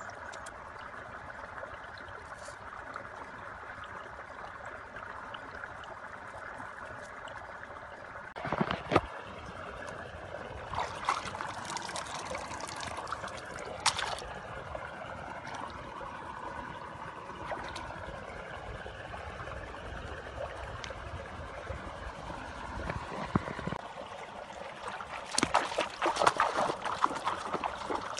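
Shallow stream water running and trickling, with a few sharp knocks and splashes. Near the end, splashing footsteps of someone wading through the shallow water.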